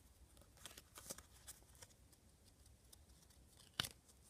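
Near silence with faint handling noises: a few light rustles and taps about a second in, and one sharper click near the end.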